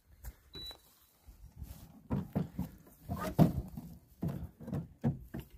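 Handling noise from a plastic bait boat hull as it is lowered onto the water and set afloat: a run of irregular knocks and thuds, loudest about three and a half seconds in. A short high beep sounds under a second in.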